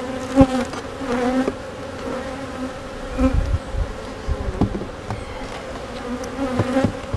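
Honey bees buzzing around an open hive in a steady hum, with bees passing close by now and then. A few light knocks as the hive and its cover are handled.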